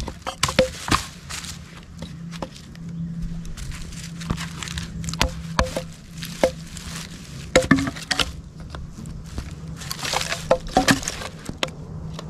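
Batoning wood with a Gerber LMF II knife: a wooden baton knocks on the knife's spine to drive it through kindling, giving sharp knocks in irregular clusters of a few at a time.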